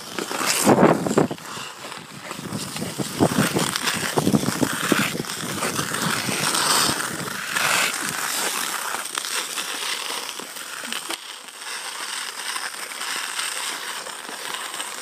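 Ice skate blades scraping and gliding over outdoor ice: a continuous gritty hiss, with several louder knocks and scrapes in the first few seconds.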